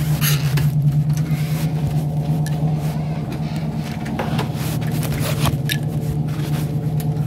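A 1981 Oldsmobile Cutlass Brougham's engine running at a steady speed, an even low drone, with a few light clicks over it.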